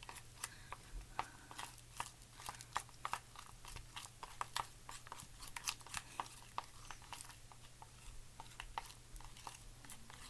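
A stick stirring clear glue in a bowl: a quiet, irregular run of small clicks and sticky crackles as the stick scrapes and taps against the bowl.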